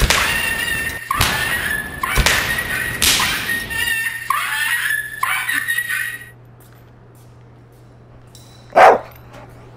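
A dog yelping and whimpering in distress, a rapid string of sharp cries falling in pitch with a few thuds among them, breaking off about six seconds in. A single loud bark comes near the end.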